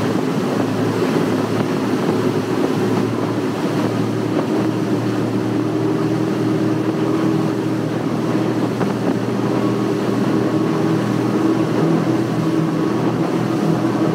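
Triple Mercury 600 hp V12 Verado outboards running steadily at high rpm near wide-open throttle, with water and wind rushing past the hull. The engine drone climbs slightly as the engines pull from about 5,100 toward 6,100 rpm.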